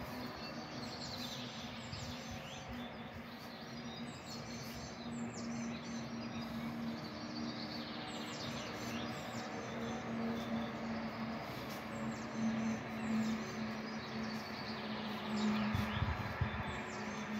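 Songbirds singing outdoors: many short chirps sweeping downward in pitch, repeated throughout, over a steady low hum.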